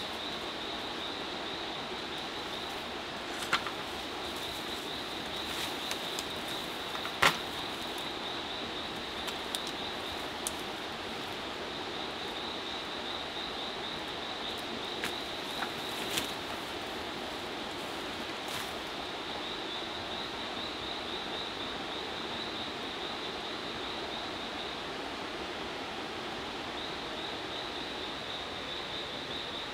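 Riverside forest ambience: a steady rush of flowing water under a high, fast-pulsing insect drone, with a few sharp knocks or clicks, the loudest about seven seconds in.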